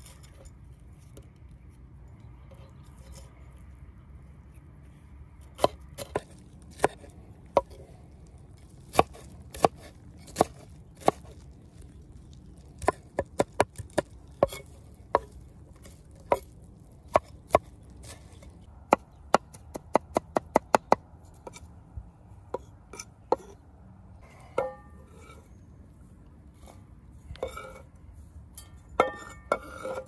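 Large knife chopping bell pepper on a thick wooden cutting board: sharp knocks of the blade on the wood, spaced irregularly at first, then a quick run of about four a second. Near the end a few clinks with a short metallic ring.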